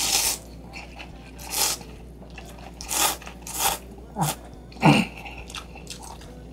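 Close-up eating noises of a person eating instant noodles in broth: six short, loud bursts of slurping and chewing, roughly a second apart.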